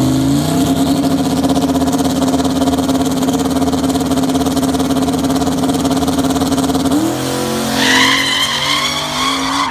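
Turbocharged drag car's engine held at steady high revs on the start line, then launching: the note shifts and climbs about seven seconds in, and a higher-pitched whine or squeal joins as the car pulls away.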